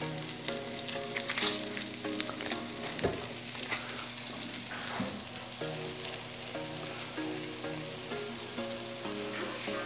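Sliced onions sizzling steadily in butter-flavoured oil on a hot flat-top griddle with two burners set to 350. Near the end, a stick of butter is rubbed onto the hot steel and melts with a sizzle. Faint background music with held notes plays underneath.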